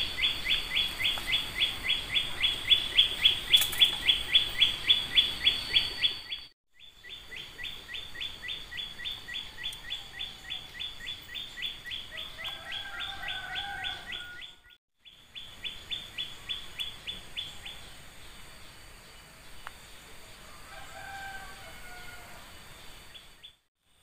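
Rapid, very even high-pitched chirping from a small animal, about six pulses a second. It is loud at first and fainter later, and is broken off abruptly by short silences.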